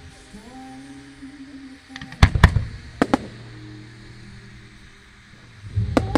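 Firework shells bursting with sharp bangs: a pair about two seconds in, two more around three seconds, and another near the end. Music with sustained notes plays underneath.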